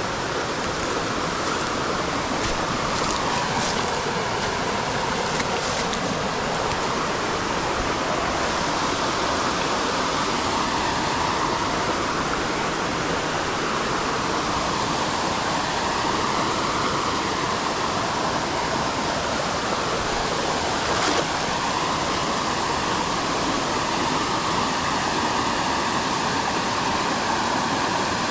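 Creek water running steadily, a continuous rushing noise, with a few faint clicks near the start and one brief sharp knock about three-quarters of the way through.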